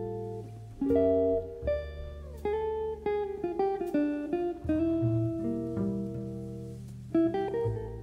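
Background music on plucked acoustic guitar, single notes and chords struck in turn and left to ring and fade.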